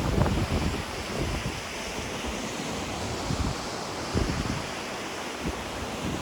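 Ocean surf washing steadily on the shore, with wind buffeting the microphone in low gusts, strongest at the start and again about four seconds in.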